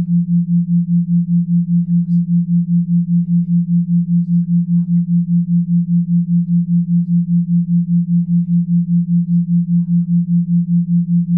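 Low electronic sine tone, steady in pitch, pulsing evenly in loudness about four to five times a second, like a hypnosis pulse tone.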